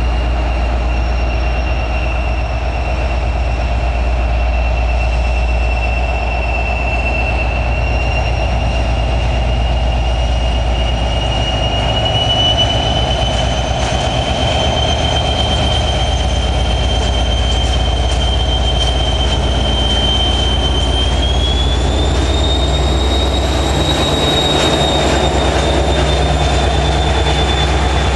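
SNCF CC 72000 diesel locomotive running loud under load as it hauls a freight train of hopper wagons past, a steady high whine over the engine noise that climbs in pitch about three quarters of the way through.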